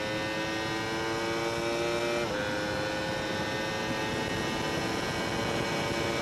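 Honda CBR1000RR's inline-four engine at full throttle near top speed, heard from the rider's seat with wind rush, its pitch climbing steadily. About two seconds in it drops suddenly for an upshift from fourth to fifth, then climbs again.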